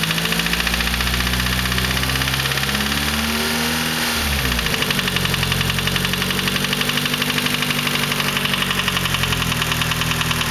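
Nissan SR20DET turbocharged 2.0-litre four-cylinder engine idling with a rapid, even knock. The engine speed rises briefly and falls back about three to four seconds in. The owner says the knock comes only when the engine is cold and goes away above about 3500 rpm, and it persists despite new lifters and a new timing chain tensioner.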